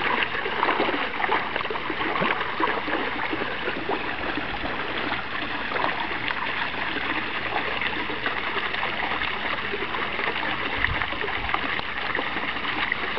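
Small garden-pond fountain splashing steadily into the water, with the sloshing of a puppy wading through the pond. The splashes are sharper in the first couple of seconds.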